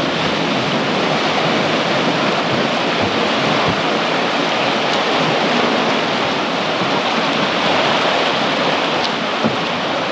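Water rushing and churning into a river lock chamber through the open gate sluices as the lock fills: a loud, steady rushing.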